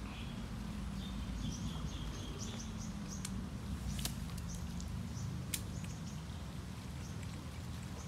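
Outdoor pond-side ambience with a steady low rumble, a bird chirping in a quick run of notes over the first three seconds, and a few sharp clicks, one about four seconds in.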